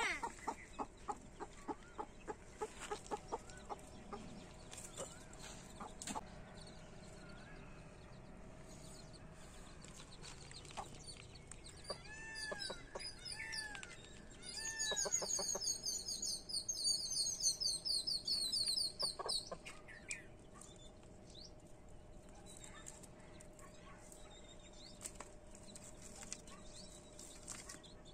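Mother hen clucking to her newborn chicks in short calls, about three or four a second, over the first few seconds. Past the middle come a few arched calls, then a burst of rapid high peeping for several seconds, typical of chicks.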